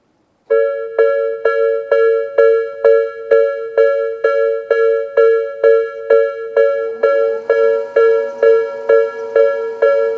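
Japanese railway level-crossing warning bell, Tobu Railway's electronic 'sound B' type, starting about half a second in and sounding a pair of close ringing tones struck a little over twice a second. About seven seconds in, a fainter, lower whine rises in, holds, and falls away near the end.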